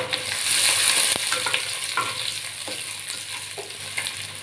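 Green chillies sizzling in hot sesame oil in a clay pot, stirred with a wooden spatula that knocks and scrapes against the pot every second or so. The sizzle is loudest about a second in and then eases a little.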